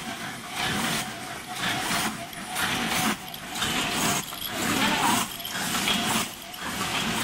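Open-cam paper cup making machines running at production speed: a rhythmic mechanical clatter of about two strokes a second over a steady thin tone.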